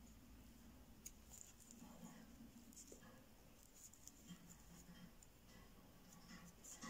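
Near silence, with faint rustles and a few light ticks of crochet yarn and hook being handled.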